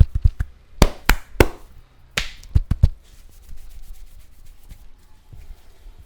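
Hand massage percussion: the tail of a fast run of chopping strokes, then a handful of harder single slaps and a brushing swish over the first three seconds, after which the hands rub softly over skin and hair.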